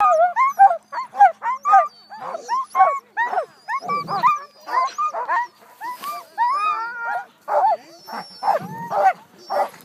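A team of sled dogs in harness barking in rapid, overlapping calls, with some longer rising whines around the middle: the excited clamour of dogs waiting to run.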